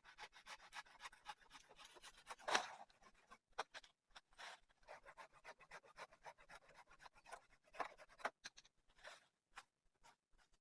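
Faint, rapid, irregular scratching and crackling, with a louder scrape about two and a half seconds in and another near eight seconds.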